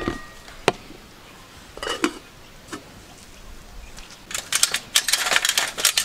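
Aluminium cooking pot and its metal lid clinking as the lid is handled and set on: a few sharp single clinks and a short clatter. About four seconds in comes a quick run of rattling clatters, louder than the rest.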